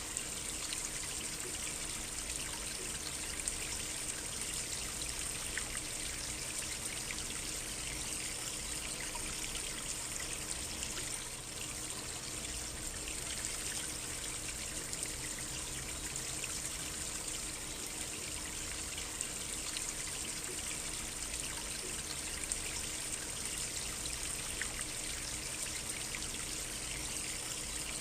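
A small stream trickling steadily, a continuous wash of running water with small splashes.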